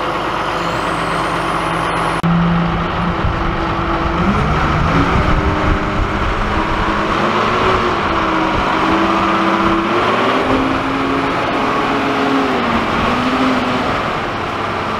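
Dresser wheel loader's diesel engine running as the machine drives, its pitch rising and falling with the throttle.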